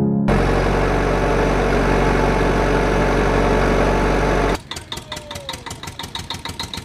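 Vehicle engine sound effect running steadily, cutting off abruptly about four and a half seconds in. A quieter engine follows, puttering with a fast even beat of about nine strokes a second.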